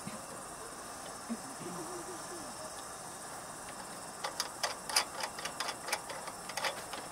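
Fuel filler cap being unscrewed by hand from the tank of a Coleman NorthStar dual-fuel pressure lantern: a quiet stretch of handling, then a string of irregular light clicks from about four seconds in.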